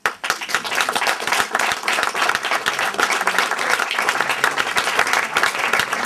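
Audience applauding: a dense, steady stream of hand claps from many people.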